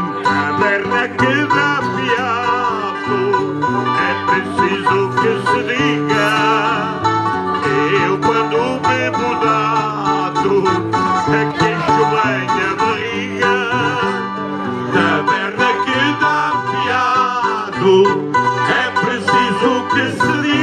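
Music: plucked string instruments playing with a singing voice, continuous and steady in level.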